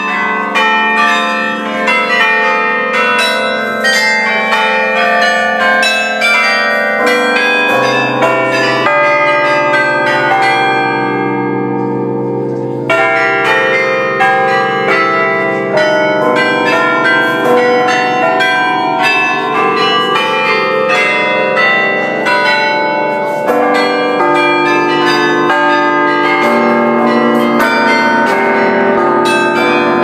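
The Bruges Belfry carillon heard close up, playing a tune: many tuned bronze bells struck in quick succession, each note ringing on and overlapping the next. Around a third of the way in, the fast high notes drop out for a few seconds while lower bells hum on, then the quick strokes start again.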